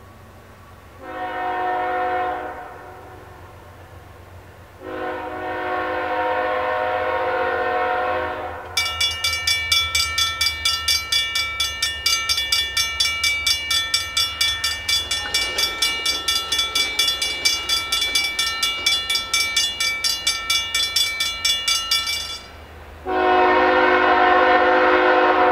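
Horn of an approaching BNSF ES44DC freight locomotive sounding for a grade crossing: a shorter blast, then a long one. From about nine seconds in, the crossing bell rings in a fast, even rhythm and stops a little after twenty seconds. Another long, loud horn blast follows near the end as the train nears the crossing.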